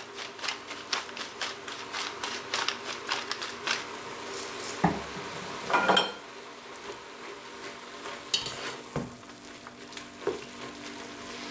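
Spinach cooking in an enamel pot with a low sizzle while pepper is ground over it from a mill, a rapid run of small cracking clicks for about the first four seconds. Two louder knocks come about five and six seconds in, and near the end a spatula stirs and scrapes in the pot.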